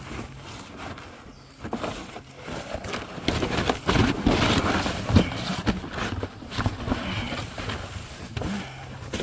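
A person crawling through a crawl space: irregular scraping, rustling and knocks as hands, knees and gear move over the ground, busiest in the middle.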